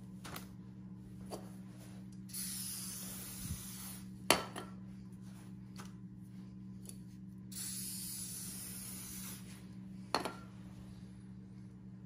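WD-40 aerosol can spraying a cleaned roller chain: two hissing bursts of nearly two seconds each, a few seconds apart, putting a light protective oil on the chain. Sharp clicks and knocks from handling come between, the loudest just after the first burst, over a steady low hum.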